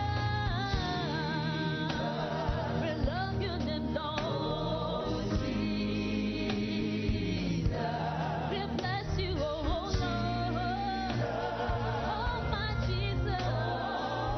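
Gospel song with singing voices over a steady band accompaniment with a regular beat.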